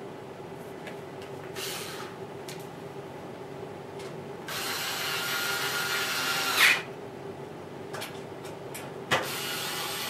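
Cordless drill-driver driving screws back into a washing machine's panel in short runs. There is a brief run about two seconds in, then a longer run of about two seconds that ends in a sharp, louder burst. Another run starts with a click near the end.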